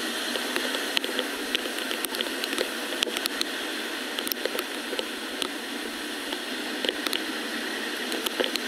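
Steady hiss of rain and muddy water with many scattered sharp ticks, and the wet squelch and splash of hands digging mud and debris out of a flooded, clogged roadside culvert drain.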